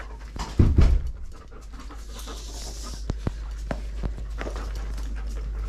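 Giant Schnauzer panting as it searches, with a few light clicks. A couple of loud thumps come about half a second in.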